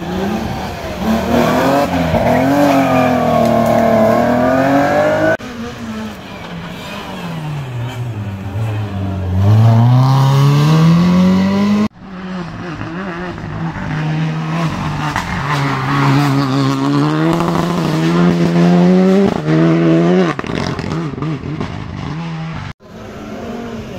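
Rally car engines revving hard through bends. The engine note climbs and drops as the cars brake, accelerate and change gear, in several separate passes that are cut together, each ending abruptly.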